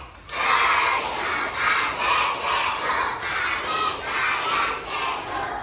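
A large crowd of schoolchildren shouting together in unison, rising and falling about twice a second.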